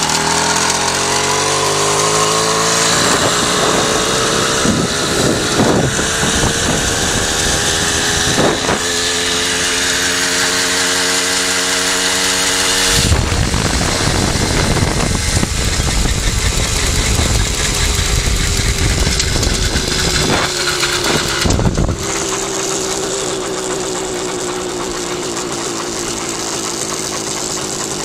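Riga-13 moped's small air-cooled two-stroke engine running under way, rising in pitch over the first few seconds as it picks up speed, then steady. A few short knocks come early on. A loud low rushing noise covers it for about nine seconds in the middle. Near the end the pitch eases down as it slows.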